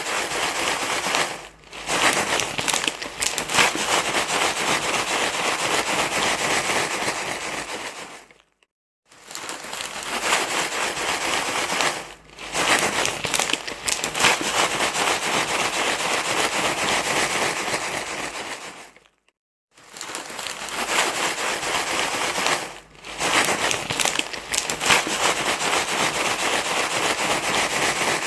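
Dense crinkling, rustling noise, like something being crumpled and handled, repeated as a loop. It comes in runs of about ten seconds, each with a brief dip early on, separated by short silent breaks. It is a rustle sound made for soothing a crying baby.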